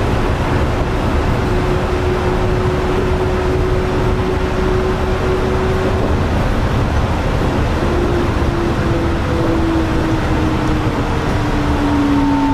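Yurikamome rubber-tyred automated guideway train running, a steady rumble with a motor whine. From about eight seconds in, the whine falls gradually in pitch.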